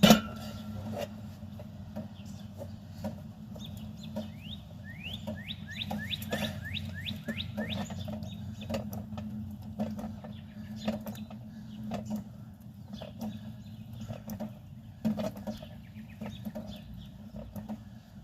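A bird calling: a quick run of about a dozen high sweeping notes a few seconds in, over a steady low hum and scattered knocks.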